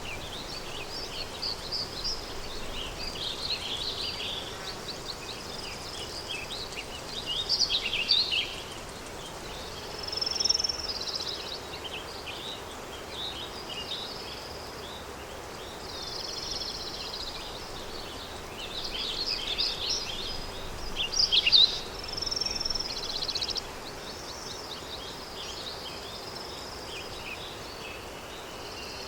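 Countryside ambience: songbirds singing in repeated phrases of quick high chirps and trills, over a steady soft rush of wind.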